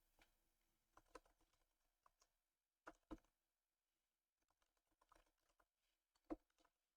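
Faint, scattered keystrokes on a computer keyboard: single taps and short clusters of two or three with pauses between, the loudest about six seconds in.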